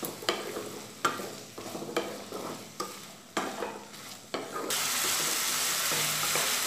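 Wooden spatula stirring diced potato and papaya frying in oil in a nonstick wok, scraping and knocking against the pan several times. About two-thirds of the way through, a steady sizzle of the frying takes over.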